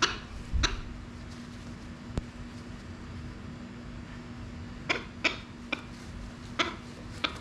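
Scissors snipping at a parrot's wing feathers: about eight short, sharp snips at irregular intervals, over a steady low hum.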